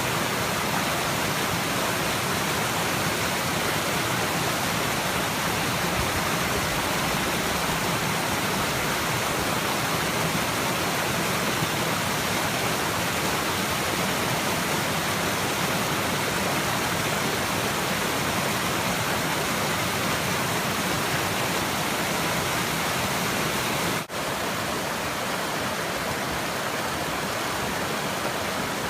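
Water rushing steadily over a small waterfall in a stream. There is a brief dropout about 24 seconds in, and the rushing is slightly quieter after it.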